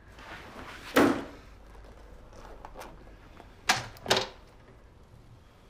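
Three sharp impacts: a loud one about a second in, after a short swelling rustle, then two more in quick succession near the middle.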